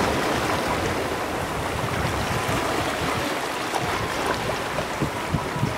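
Small sea waves washing and fizzing over a shallow rocky reef flat, with wind buffeting the microphone.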